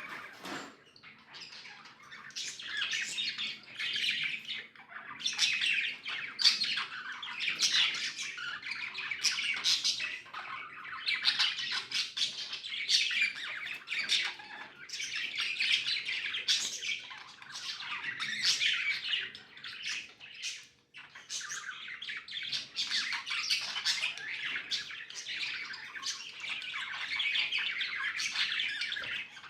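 Pet budgies chattering and chirping almost without pause, a busy mix of warbles, chirps and sharp clicks, with one short break about 21 seconds in.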